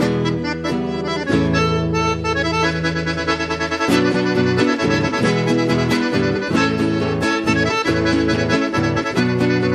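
Button accordion playing a chamamé tune, holding a sustained chord for a couple of seconds before moving into quicker runs of notes, with guitar accompaniment underneath.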